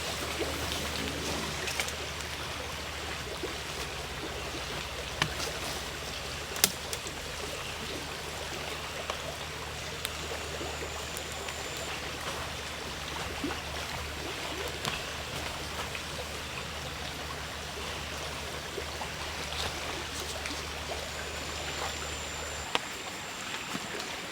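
Steady rush of running water in a rainforest camp, with a few sharp clicks about five and six and a half seconds in.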